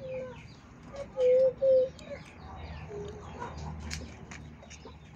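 Chickens calling: a few short, loud, low notes, one at the start and two in a row a little over a second in, over a steady run of high, falling chirps.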